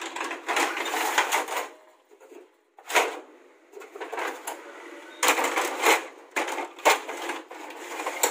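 Plastic paper cassettes of a Canon imageRUNNER copier being slid and pushed into their bays: a run of plastic clattering, scraping and sharp clicks, in several bursts.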